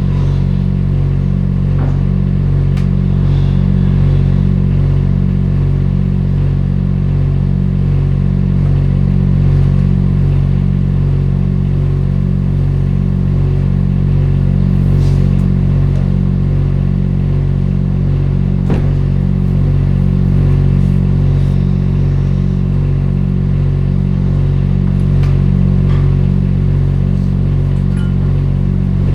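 Front loader's engine running steadily under load, with a regular pulsing about one and a half times a second and a few light clatters.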